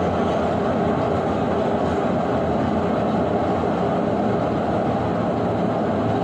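Brastemp BWK11 washing machine running with a steady mechanical rumble and hum.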